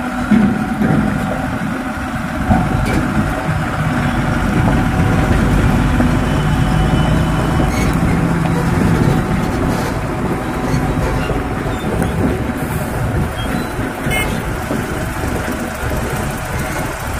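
Diesel engines of heavily loaded Tata trucks running as they drive slowly past at close range, a steady low engine hum that grows a little louder through the middle.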